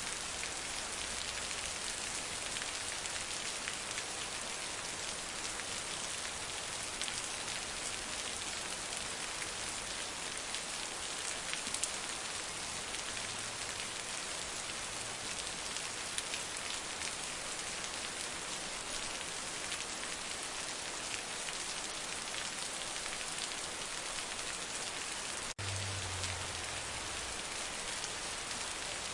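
Heavy rain falling: a dense, steady hiss of many drops. It breaks off for an instant near the end, and a brief low rumble follows.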